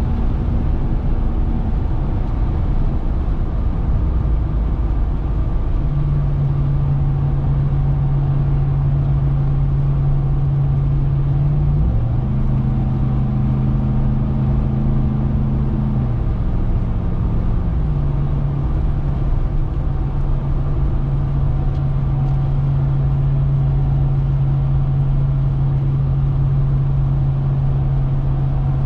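2021 RAM 1500 TRX's supercharged 6.2-litre Hemi V8 droning at a steady cruise under a constant hum of road noise. The engine note steps up about twelve seconds in and settles back down a few seconds later, as the truck shifts or changes speed.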